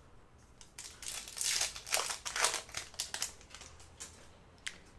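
Trading-card pack wrapper crinkling and rustling as a pack of Panini Mosaic football cards is opened. The rustling starts about a second in and lasts a couple of seconds, with a small click near the end.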